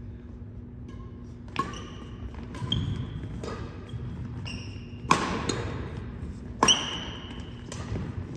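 Badminton rally: rackets striking the shuttlecock about once a second, with sneakers squeaking on the hardwood court between hits. The two hardest hits come about five seconds and six and a half seconds in.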